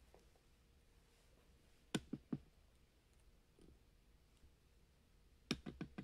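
Faint room tone broken by a few short clicks and taps from the handled turtles: three in quick succession about two seconds in, and a quick cluster of five or six near the end.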